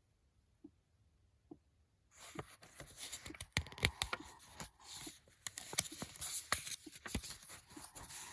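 Faint soft thumps about once a second, the sleep doll's simulated heartbeat, then from about two seconds in loud crinkling and crackling with many sharp clicks as the doll or its packaging is handled.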